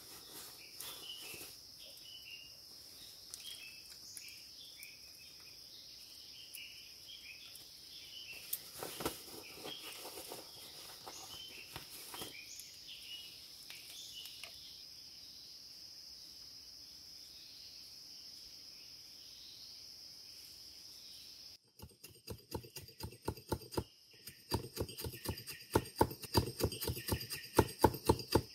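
Steady forest insect chorus with soft crackles of dry mushrooms being handled. About two thirds of the way in it gives way to rhythmic chopping on bamboo, about three strikes a second, growing louder.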